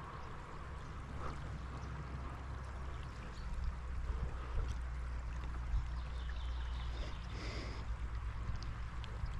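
Water of a small seasonal stream running steadily, over a low rumble on the microphone.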